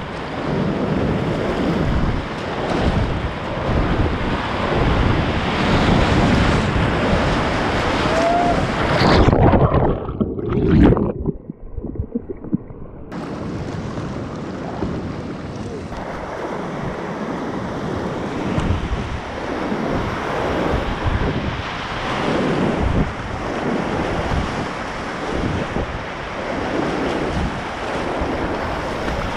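Whitewater rapids rushing and splashing around a kayak, with wind buffeting the microphone. About ten seconds in the sound turns dull and muffled for a few seconds, then the full rushing returns abruptly.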